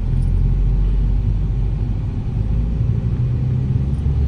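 Car engine and road noise heard from inside the cabin as the car drives off: a steady low rumble.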